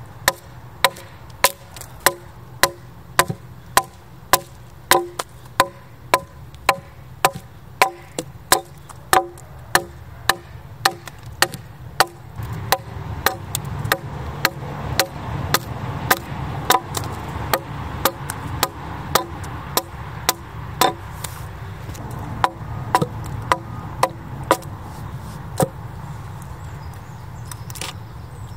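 Axe chopping into a red oak board as it is hewn, steady blows about one and a half a second, each with a short wooden ring. Halfway through the blows get lighter over a low rumble, and a last lone blow lands near the end.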